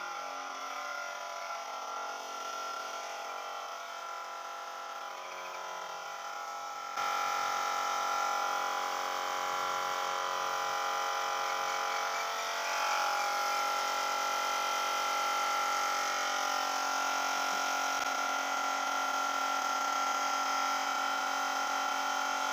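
Steady motor whine of spray-polishing equipment as lacquer is sprayed onto a carved wooden swing; it gets louder about seven seconds in and holds steady.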